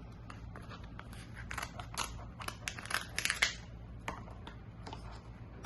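Kitchen scissors snipping through the hard shell of a cooked king crab leg: a run of crisp cuts and cracks, thickest between about one and three and a half seconds in, with one sharp snap near the end.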